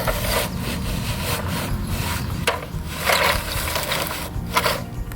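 Toy construction trucks scraping and crunching through dirt and sand in a series of short scrapes.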